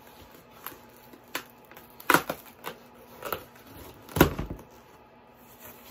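Fingernails picking and scratching at packing tape on a cardboard box: scattered short scrapes and taps, the loudest about two seconds in, with a heavier thump on the box about four seconds in.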